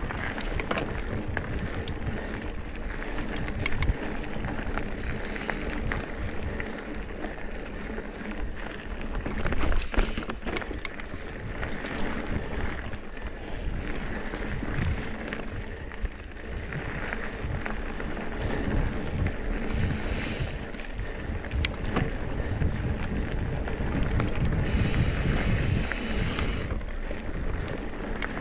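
Trek Top Fuel mountain bike ridden over dirt singletrack: tyres rolling over the trail, with frequent rattles and knocks from the bike over roots and rocks and wind rushing on the camera microphone. A sharp knock about ten seconds in is the loudest.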